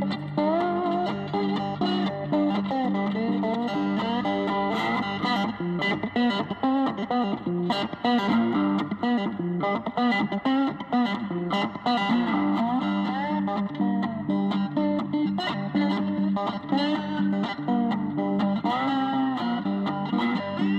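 Background music led by an electric guitar with distortion and other effects.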